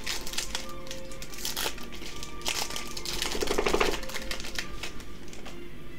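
Foil Yu-Gi-Oh booster pack wrapper crinkling and crackling in the hands, then torn open with a louder rip about three and a half seconds in. Background music plays underneath.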